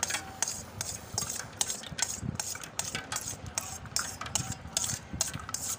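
Kitchen knife chopping set jelly into small cubes in a stainless-steel bowl, the blade tapping against the metal bowl in quick irregular taps, a few a second.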